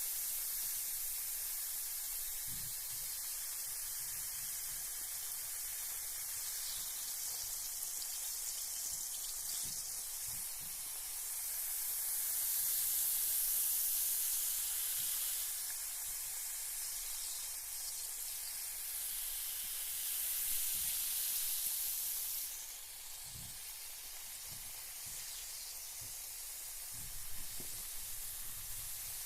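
Carbonated bath bomb fizzing in bathwater: a steady high hiss of bubbles that grows louder twice in the middle, then settles a little quieter for the last quarter.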